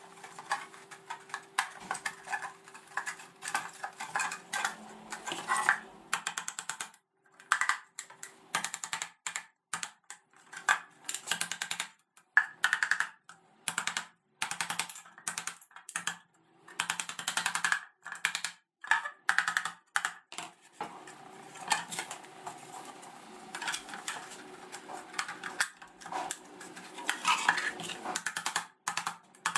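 Small wooden mallet tapping rapidly on laser-cut plywood box panels, knocking the finger joints home. Quick runs of light, sharp knocks with short pauses between them.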